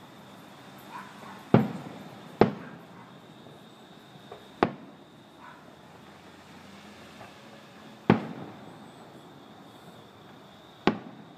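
Aerial firework shells bursting: five sharp bangs at uneven intervals, each trailing off in a short echo.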